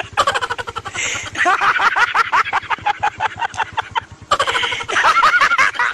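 A man laughing hysterically in a rapid, high-pitched, rhythmic cackle of several pulses a second, pausing briefly about one and four seconds in.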